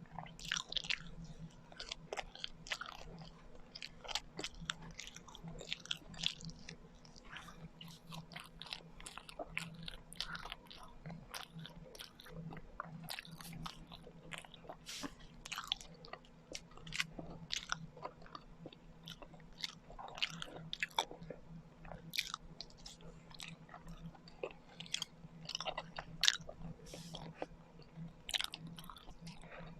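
Close-miked chewing and biting of kakanin, Filipino rice cakes, with many short, irregular mouth clicks and smacks. A steady low hum runs underneath.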